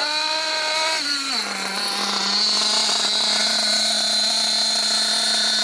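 Alpha Plus nitro engine in an RC buggy running during break-in: the engine speed drops about a second in, then it settles to a steady idle with a high whine above it.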